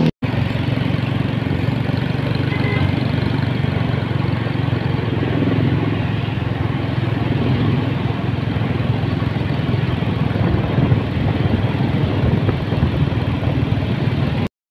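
Steady rumble of motor-vehicle engines and street traffic, even and unbroken, stopping abruptly near the end.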